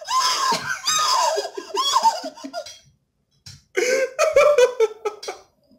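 A man laughing in two spells, with a short pause between them.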